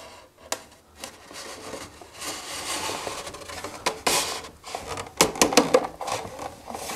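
A wooden divider board sliding down into the dado slots of a wooden toolbox, with wood rubbing on wood, then several sharp knocks as the board seats and the box is pressed together.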